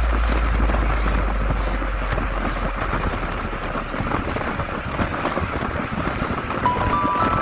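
Wind noise and road noise of a car at highway speed, heard from inside the cabin through a phone's microphone. A low rumble fades about three seconds in, and a few chime-like musical notes come in near the end.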